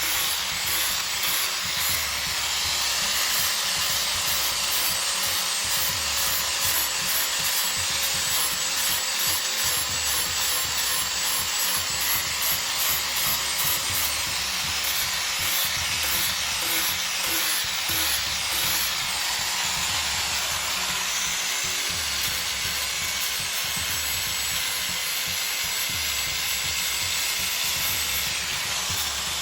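Wood of a large tree root being sanded: a steady, continuous rasping hiss that runs without a break.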